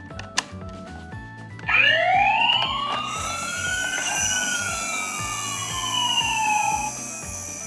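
Siren wail: starts about two seconds in, rises to a peak a couple of seconds later, then slowly winds down, loudest at its start. Before it, a short run of plinking background music with a few clicks.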